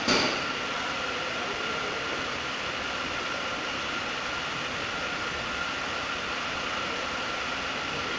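Hot-air plastic welding gun running, a steady blowing hiss with a constant high-pitched whine from its blower, held against bumper plastic during welding. A brief knock right at the start.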